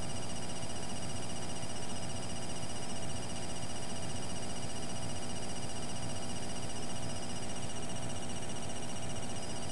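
Steady droning background noise with several steady tones held unchanged throughout, and no speech.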